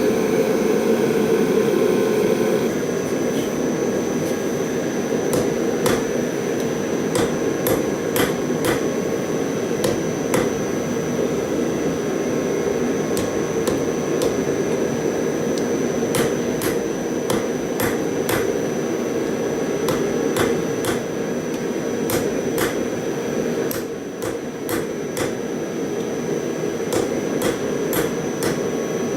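Irregular sharp metallic taps, roughly one or two a second, over a steady roar with a thin high whine running through it.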